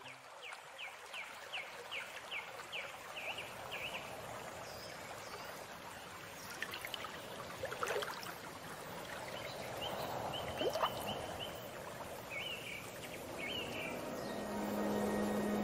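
Birds chirping over a steady soft rushing noise: first a quick run of short falling chirps, later a brief trill and a few more chirps. A low sustained music tone comes in near the end.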